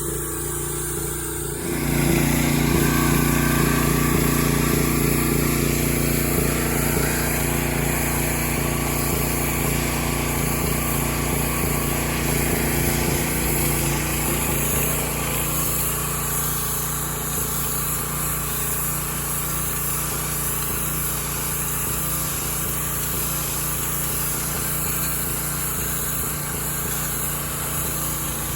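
Gas-engine pressure washer running steadily. About two seconds in it jumps louder and a spray hiss fills in, then it eases slightly after about fifteen seconds.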